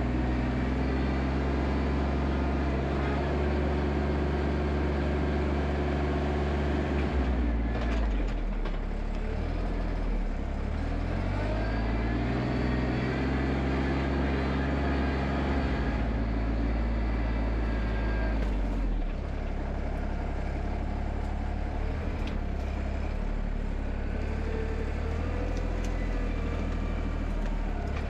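Compact diesel tractor engine running, its pitch shifting up and down several times as the engine speed changes.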